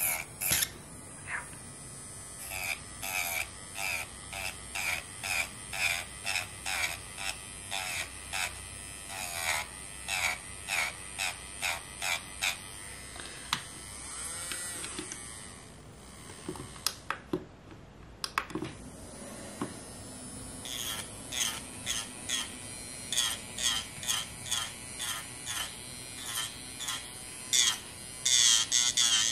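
Electric nail file (e-file) buzzing as its bit grinds down grown-out gel nails for a fill, in short repeated passes about one to two a second, with a quieter stretch about halfway through.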